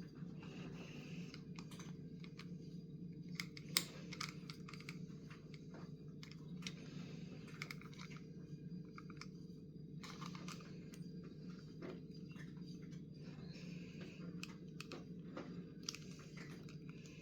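Faint handling noises: irregular clicks, taps and crinkles, as of plastic parts and packaging being handled, with one sharper click about four seconds in, over a steady low hum.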